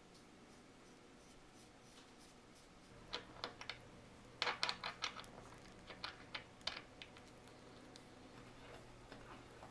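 An irregular cluster of light clicks and taps as a watch movement is lowered into and handled in a movement holder, bunched from about three to seven seconds in, with a few more near the end.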